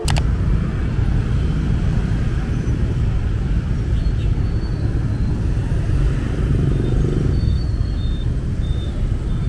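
Busy street traffic of motorbikes and cars at an intersection, a steady low rumble of engines and tyres.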